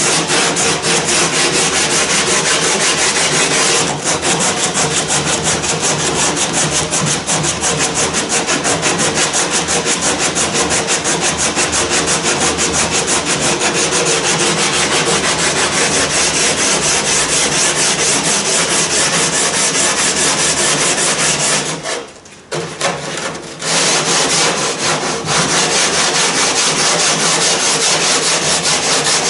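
80-grit sandpaper on the back of a sanding block rubbed in quick back-and-forth strokes along the freshly cut edge of a cedar-strip kayak deck, smoothing the cut. The sanding stops briefly about 22 seconds in, then carries on.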